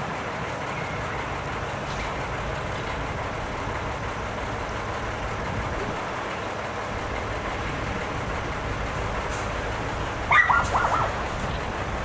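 Karosa ŠL11 city bus standing with its engine idling, a steady low running sound. About ten seconds in, a brief loud high-pitched sound in a few quick pieces cuts in over it.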